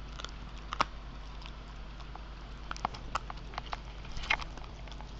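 A dog cracking sunflower seed shells with its teeth: irregular sharp cracks and crunches, one loud one about a second in and a bunch of them between about three and four and a half seconds.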